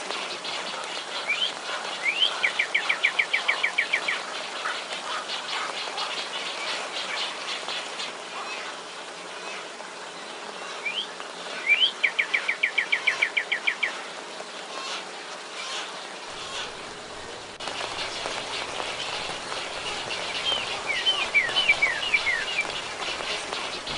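A songbird singing outdoors. It gives the same phrase twice, about ten seconds apart: a couple of quick rising notes, then a rapid run of about ten short falling notes. Near the end come a few short down-slurred chirps, all over a faint steady insect chirring.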